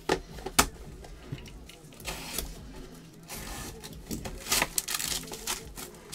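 Trading-card box packaging being handled and opened: a few sharp clicks and knocks and stretches of crinkling, tearing noise, over background music.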